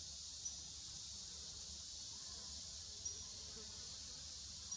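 Steady high-pitched drone of a forest insect chorus, with three short high chirps cutting through it, about half a second in, about three seconds in and near the end.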